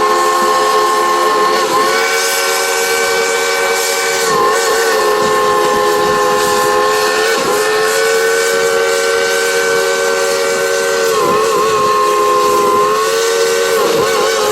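Lonergan three-chime steam whistle on steam locomotive No. 192 blowing without a break, played as a tune: the chord shifts pitch about five times, wavering briefly at each change, with a steady steam hiss underneath.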